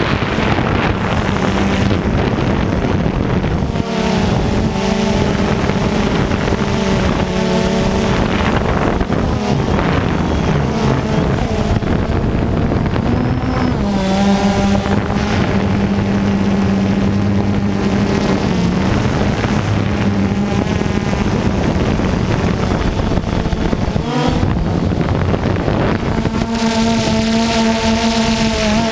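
Steady, loud rush of a large waterfall, with a low droning hum underneath that holds one pitch for several seconds at a time and shifts now and then.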